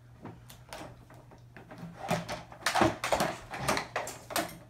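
Plastic Graco Blossom infant seat being handled and lifted: a few faint clicks, then from about two seconds in a string of louder knocks, rattles and scrapes, the loudest just under three seconds in.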